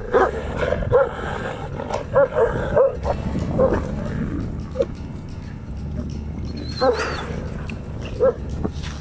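Wolves and a Tibetan mastiff squabbling over a carcass: short pitched yelps and barks, about ten, scattered through, over a steady low rumble.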